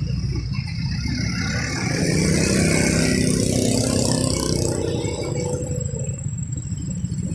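A motor vehicle engine passing by over a steady low rumble, growing louder a couple of seconds in and fading again.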